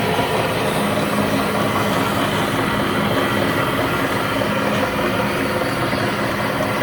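Horizontal metal-cutting bandsaw, a Wilton 3535 7 x 12 inch, running steadily with its coarse 3-teeth-per-inch blade partway through cutting a 4.5 inch piece of steel.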